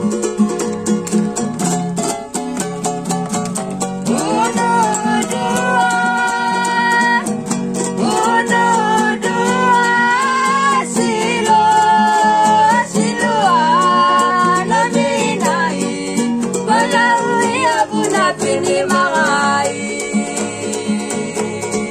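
Ukulele and acoustic guitar strummed in a steady rhythm, with several voices singing together from about four seconds in until shortly before the end.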